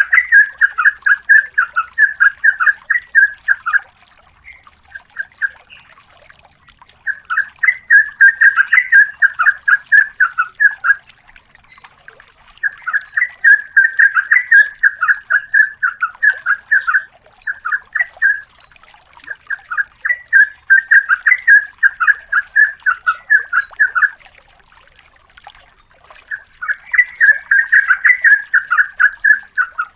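A sooty-headed bulbul (trucukan) sings long, rapid runs of chattering notes. It gives about five bouts of several seconds each, with short pauses between them. Fainter, higher twittering from other birds is mixed in.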